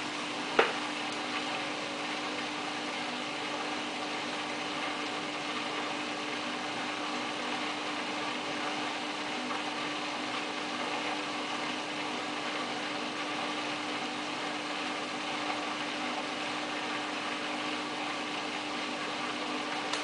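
Samsung WF8804RPA front-loading washing machine in its service cycle giving a steady hum, with one sharp click about half a second in.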